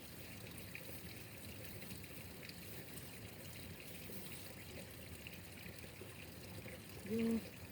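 Water trickling steadily, with a short voice-like sound near the end.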